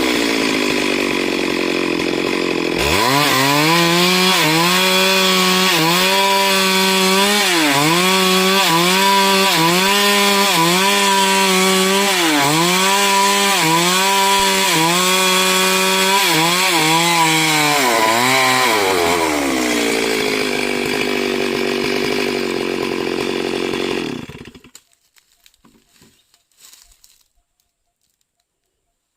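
Stihl MS 382 two-stroke chainsaw engine revving up from idle and running at high speed, its pitch dipping and recovering about once a second as if loading down in a cut. It then slows toward idle and shuts off a few seconds before the end, leaving a few faint ticks.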